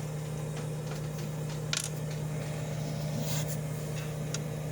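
1960s Mitchell dehumidifier's compressor and fan motor running with a steady hum, with a few light clicks over it.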